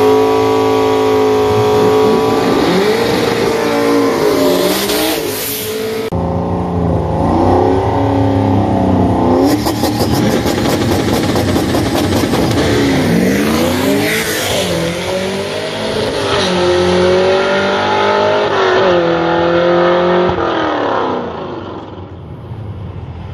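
Ford Mustang's 5.0 V8 run hard on a drag pass: loud revving, then a launch with the engine's pitch climbing and dropping at each gear change. It fades away near the end as the car runs off down the track.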